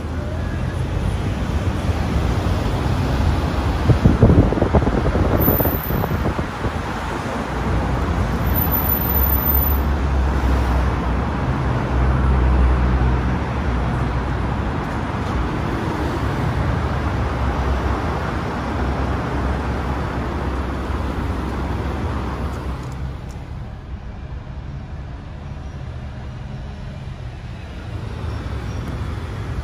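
City road traffic: a steady rumble and hiss of passing vehicles, with a few brief knocks about four to six seconds in, dropping quieter about three-quarters of the way through.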